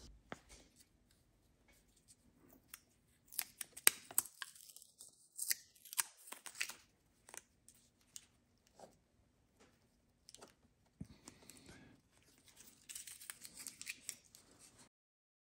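Thin wooden strips and bamboo dowel rods being handled on a workbench: faint, scattered clicks and taps as the sticks knock together and against the bench, with a couple of short stretches of soft rubbing and rustling later on.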